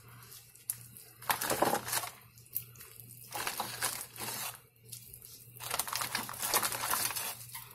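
Pieces of corn on the cob dropped one after another into a pot of water at a rolling boil: about five short splashing, rustling bursts over the bubbling of the water.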